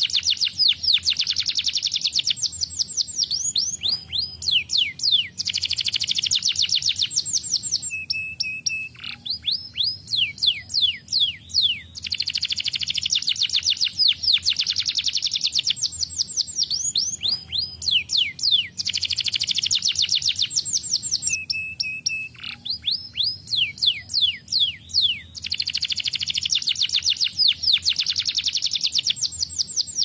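Canary singing a long, fast song of rapid trills and quick falling sweeps in phrases a few seconds long, with short breaks between them. Twice a brief held whistled note cuts through.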